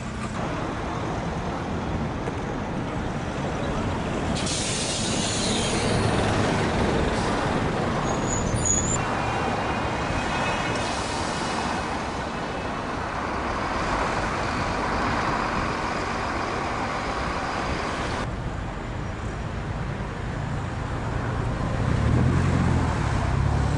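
Road traffic going by, cars and heavier vehicles, with a hiss from about four to nine seconds in and a low engine hum near the end.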